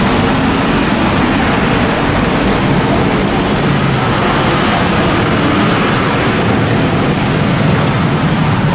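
Steady street traffic noise, mostly scooters and cars, with a faint low engine hum running through it.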